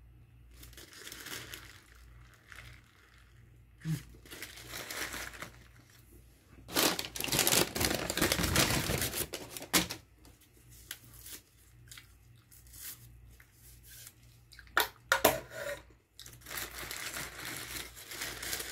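Close-up eating of a breaded chicken burger in a paper wrapper: crinkling and tearing of the wrapper and crunchy bites, in several noisy stretches, the loudest about seven to ten seconds in, with a few sharp clicks near fifteen seconds.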